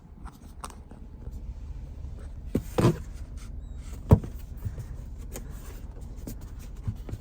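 Handling noises from a cardboard package being opened by hand: scattered rustles and clicks, a short scrape a little under three seconds in, and one sharp knock about four seconds in.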